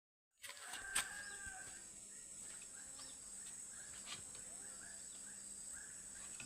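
Faint short chirping bird calls, repeating a few times a second from about three seconds in, over a steady high-pitched tone. There is a sharp click about a second in.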